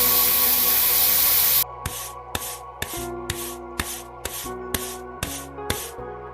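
Background music: a loud hissing swell over held notes cuts off sharply about a second and a half in. It gives way to a steady beat of short hissing strokes about twice a second over held low notes.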